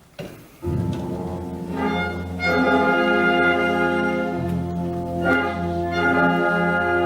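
Orchestral musical-theatre accompaniment entering after a brief hush, about half a second in, with sustained chords that swell louder and shift to a new chord partway through.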